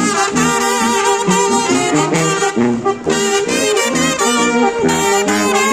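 Oaxacan village brass band playing: trumpets and trombones carry the melody over a bouncing bass line, with some notes wavering in vibrato.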